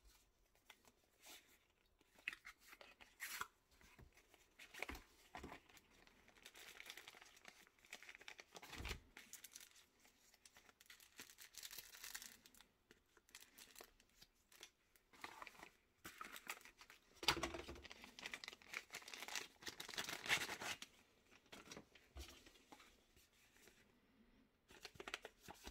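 Cardboard knife box being handled and opened, with plastic packaging sleeves and bags crinkling and rustling in irregular bursts and a few light knocks, busiest about two-thirds of the way through.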